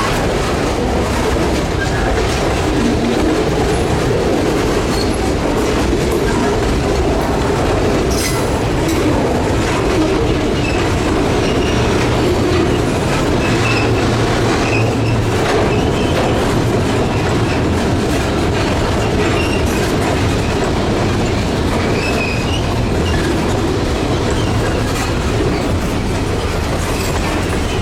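Freight cars of a long train rolling past, steel wheels clicking over the rail joints over a steady rumble.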